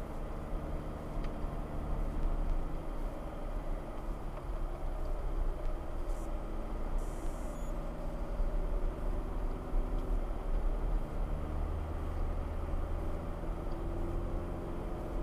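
Car engine and road noise heard from inside the moving vehicle: a continuous low rumble whose engine note shifts a few times.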